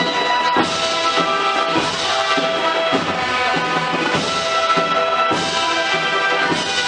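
A processional band playing a Semana Santa march, with held brass chords and regular drum strikes.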